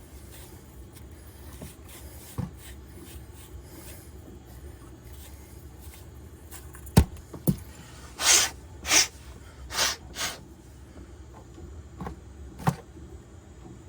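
3D-printed plastic parts being worked together by hand during a dry fit: faint rubbing and small clicks, two sharp knocks about seven seconds in, then four short hissing bursts in quick succession, and one more knock near the end.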